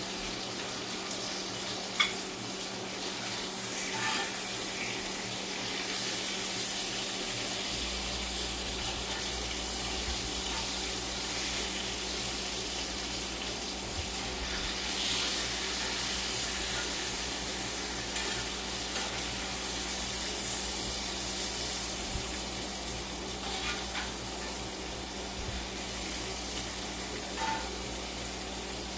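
Food sizzling in a hot frying pan: a steady hiss, with a few light clinks.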